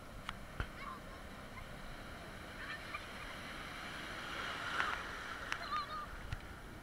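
Ocean surf washing in the shallows, swelling as a wave breaks and foams through about four to five seconds in. A few sharp knocks and some short high-pitched cries come through over the water.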